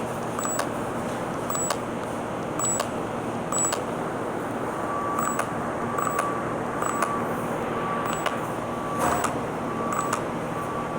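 Cordless Kobalt reciprocating saw failing to run: a click with a brief high-pitched chirp about once a second as it is tried again and again, the motor not starting. The saw is jamming. From about halfway, a repeating beep sounds a little under once a second.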